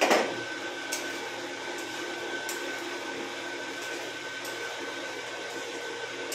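Small brinjals going into a kadai of frying masala with a brief loud burst at the start, then a spoon stirring and clinking against the pan now and then. A steady whirring hum runs underneath.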